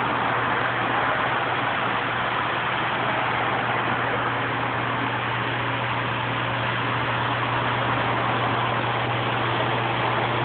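Reef aquarium pumps and circulating water: a steady low hum under a constant rushing hiss.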